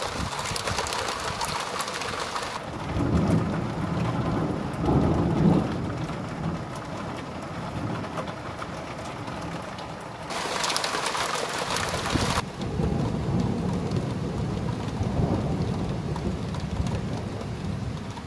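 Thunderstorm: rain falling steadily, heavier in two stretches, with thunder rumbling twice. The louder rumble comes about three to six seconds in and the second from about thirteen seconds.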